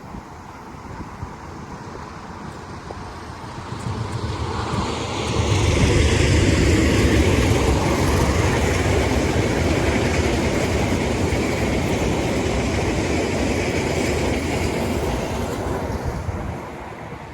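A train passing close by. Its rolling rail noise builds up about four seconds in, stays loud for about ten seconds, and falls away near the end.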